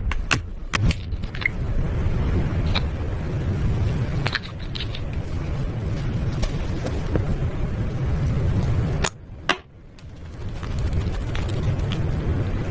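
Slime being worked and mixed by hand: a steady low rumble with scattered soft clicks and pops. The sound drops away briefly at about nine seconds.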